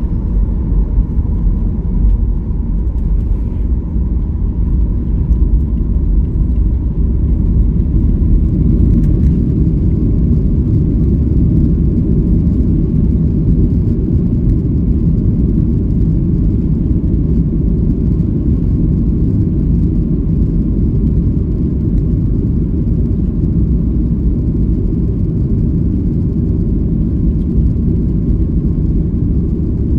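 Steady low rumble of engine and airflow noise heard inside the cabin of a Boeing 737 MAX 8 airliner.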